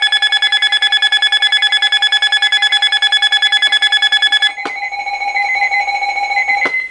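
Weather radio sounding a severe thunderstorm warning alert: a loud, fast beeping, about eight beeps a second, over a steady tone near 1 kHz. The beeping stops with a click about four and a half seconds in. The tone carries on alone, quieter, and cuts off with another click near the end.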